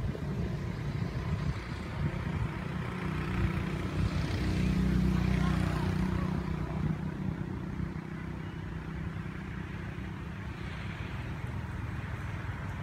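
Low rumble of a motor vehicle's engine passing by. It grows louder about four seconds in, peaks, then fades to a steady background drone of traffic.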